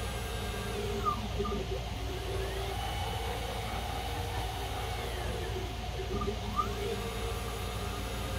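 The axis drive motors (NEMA 34 closed-loop motors) of a CNC mill running a motion programme: a steady whine made of several tones. Its pitch sweeps as the axes change speed, around a second in and again around six seconds in.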